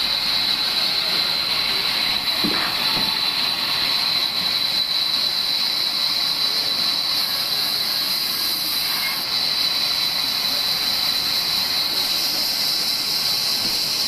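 Sawmill band saw running steadily: a high whine over a hiss that holds at one level throughout.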